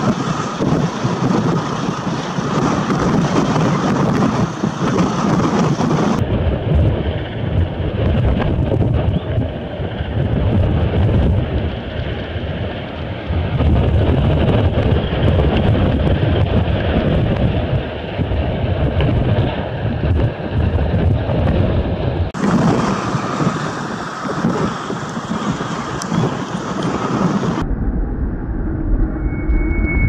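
Strong wind buffeting the microphone over a rough sea, a dense low rumbling noise that shifts abruptly in character several times.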